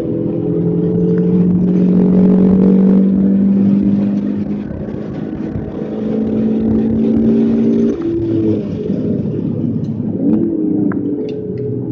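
Alfa Romeo 156 engine heard from inside the cabin under hard acceleration on track, holding a steady high note for several seconds. It drops off suddenly about eight seconds in as the driver lifts or shifts, then picks back up.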